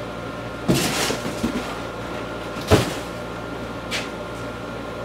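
Workshop handling sounds from someone moving about and fetching a tool: a rustle about a second in, then a single sharp knock about three seconds in, over a steady low hum.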